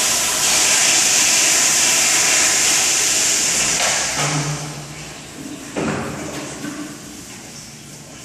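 Toilet flushing in a stall: a loud rush of water that runs for about four seconds, then fades away. A single knock sounds about six seconds in.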